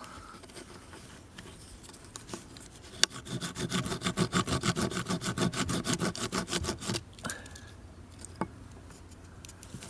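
Small metal rasp on a Zippo SureFire multi-tool scraped over fatwood. After a click about three seconds in, it goes in rapid, even strokes for about four seconds, shaving the wood into fine shavings for fire starting.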